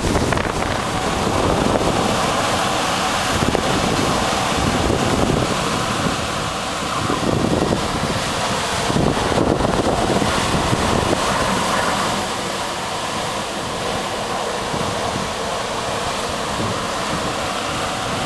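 Hurricane wind blowing in strong gusts and buffeting the microphone. It settles into a steadier rush about twelve seconds in.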